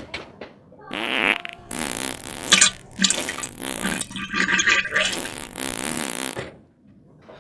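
A long run of loud fart noises, rising and falling in pitch, which starts about a second in and cuts off shortly before the end.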